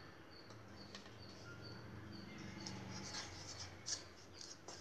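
Plastic spoon scraping and stirring spice powder in a bowl, faint scratches with a couple of light clicks in the second half. Faint short high chirps repeat through the first half.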